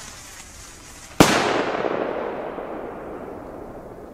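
A firework rocket from a Nico 'Heroes of Fire' rocket set bursting in the air: one sharp bang about a second in, its echo fading away slowly.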